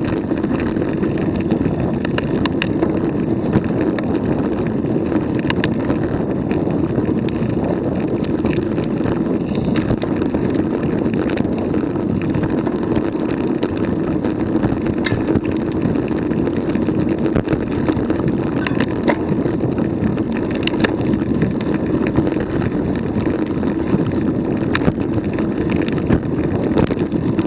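Steady rumbling wind and motion noise on a Garmin VIRB action camera's microphone as it moves quickly along the trail, with scattered light clicks.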